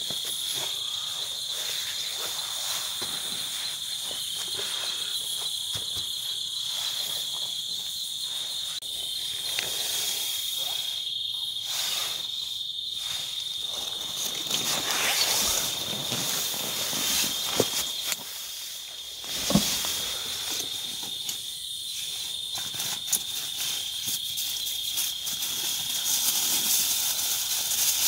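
Insects keep up a steady high-pitched trill over a hiss of background noise. A couple of sharp knocks sound about two-thirds of the way through.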